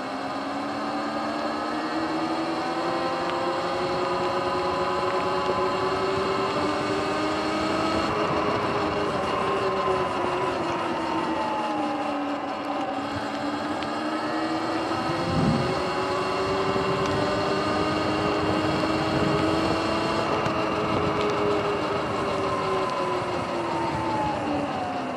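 Sur-Ron electric dirt bike's motor and drivetrain whining in several tones that rise and fall together as the bike speeds up and slows, over a steady hiss. A single thump about fifteen seconds in.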